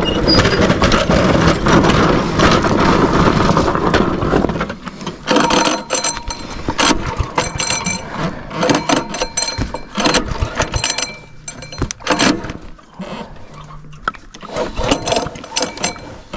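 Small minibike engine running with water still in it, which the rider is waiting to clear. It cuts out about four and a half seconds in, leaving scattered short knocks and rattles.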